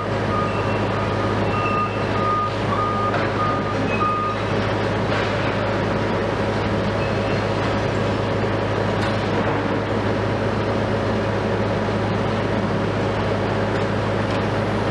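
Heavy diesel machinery running steadily, with a vehicle's reversing alarm beeping about twice a second until it stops about four seconds in.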